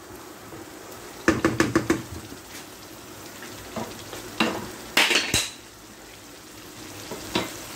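Pepper, onion and tomato stew base sizzling steadily as it fries in a pan, with a wooden spatula knocking and scraping against the pan in a quick run of strokes early on. A few more utensil knocks follow, the loudest a clatter a little past the middle.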